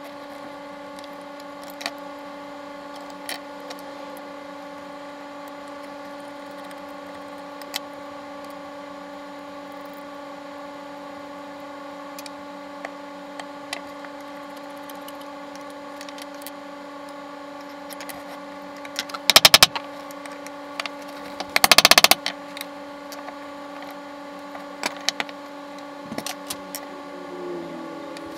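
Clicks and clinks of a screwdriver and the loosened metal parts of a Stanley No. 5 hand plane being taken apart and laid on a wooden bench, with two louder clattering bursts about two-thirds of the way in. A steady hum runs underneath throughout.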